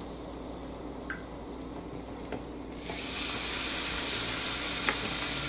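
Ground lamb sizzling on a George Foreman grill once the lid presses down on it. The sizzle starts suddenly about three seconds in and then holds as a steady high hiss, after a few faint ticks.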